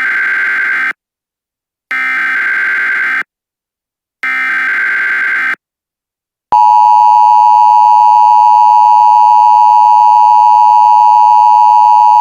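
Emergency Alert System alert tones: three short bursts of screechy SAME header data tones, evenly spaced with silence between. Then, about halfway through, the loud, steady two-tone EAS attention signal.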